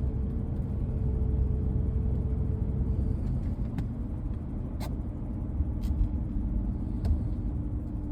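Four-wheel-drive vehicle driving, heard from inside the cabin: a steady low rumble of engine and tyres with a hum that drops in pitch about three seconds in. A few faint ticks come about a second apart in the second half.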